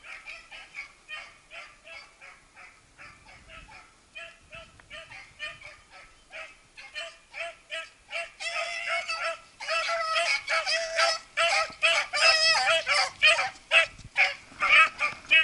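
A pack of beagles baying in quick, repeated calls while running a rabbit track. The calls are faint at first and get much louder over the second half as the hounds close in.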